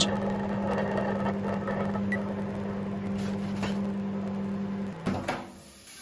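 Microwave oven running with a steady low hum while a water-soaked earthenware plate inside vibrates as the absorbed water boils out of it. The hum cuts off about five seconds in.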